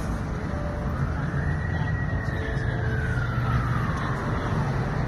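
Emergency vehicle siren wailing: one slow sweep that rises about a second in, falls over the next two seconds and starts to rise again near the end, over steady street noise.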